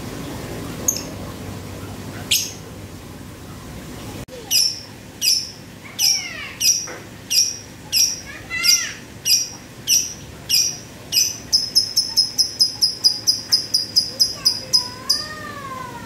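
Male Fischer's lovebird in heavy breeding condition giving its rapid 'ngetik' (typing) call: sharp, high clicking chips, at first about one every three-quarters of a second, then speeding up to about four a second, like lato-lato clacker balls. A few softer rising-and-falling chirps come near the end.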